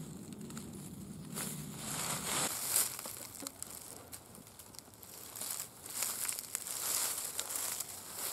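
Dry fallen leaves crunching and rustling under someone moving about and walking on the forest floor, in irregular bursts.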